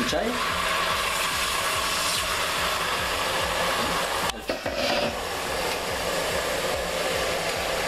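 Watery onion juice poured into hot olive oil in a pot, sizzling and bubbling steadily. The sizzle drops out briefly about four seconds in, then goes on.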